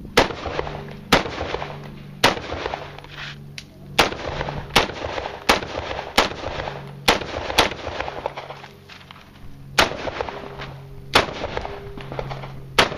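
Rifle fired in a competition stage: about a dozen sharp shots, irregularly spaced, mostly a second or less apart, with a few longer pauses between strings.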